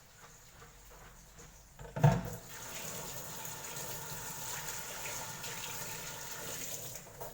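A sharp knock, then water running steadily for about five seconds, likely from a tap into a sink, cutting off suddenly near the end.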